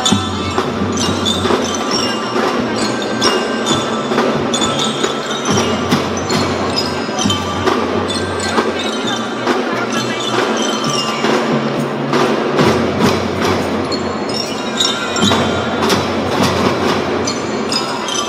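Kindergarten drum band playing: bright ringing bell tones and quick percussion strikes over a sustained low bass line that changes note every few seconds.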